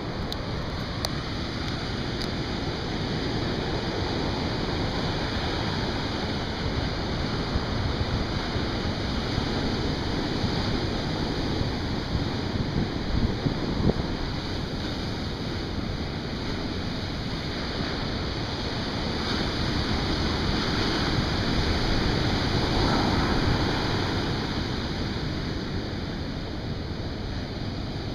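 Big ocean waves breaking on a beach: a continuous rushing wash of surf that swells louder about two-thirds of the way through.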